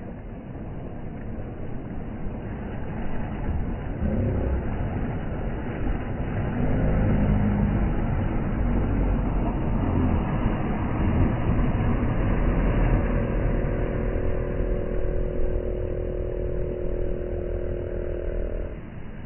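Outboard boat motor running, growing louder a few seconds in, with a steady hum that cuts off near the end, over the wash of small waves.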